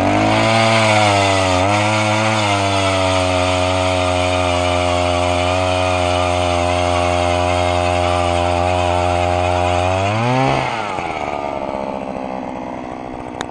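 10-inch gas-powered ice auger's engine running at full throttle as it bores through the ice, holding a steady pitch with a brief dip about two seconds in. About ten seconds in it revs up sharply, then drops away and runs down.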